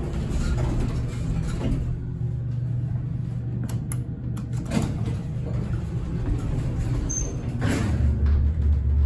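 Passenger elevator with stainless-steel sliding doors: the doors slide, the car buttons click a few times, and the car sets off with a steady low rumble that grows louder near the end.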